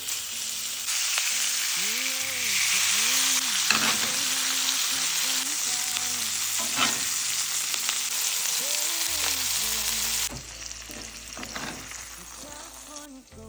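Food sizzling in a hot frying pan, a loud steady hiss that drops off sharply about ten seconds in, over background music with a singing voice.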